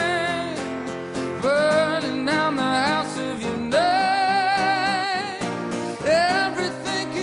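Live song performance: a man singing long held notes with vibrato, accompanied by guitar.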